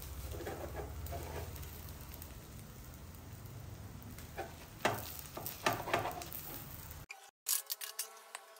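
An omelette frying in a pan, sizzling steadily, with a few scrapes and taps of a spatula about a second in and again around five to six seconds. The sound cuts off abruptly near the end, and a faint pitched sound follows.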